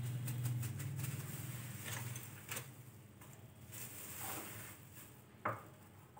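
Quiet kitchen handling while wooden sticks are pressed into a silicone cakesicle mould and one is dipped into a mug of melted white chocolate: faint rustles and light clicks, with one sharp tap about five and a half seconds in. A low hum stops a little over two seconds in.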